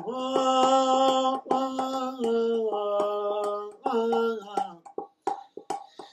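A man singing a slow melody in long held notes, tapping his fingers on an upturned metal cooking pot as a hand drum. The singing stops near the end, leaving a few taps.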